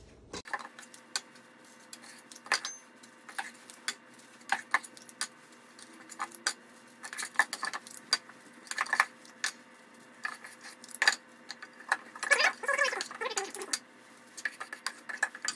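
Metal ice cream scoop clinking and scraping against a stainless steel mixing bowl as stiff cookie dough is scooped out, a run of irregular sharp clicks and clinks, played back sped up.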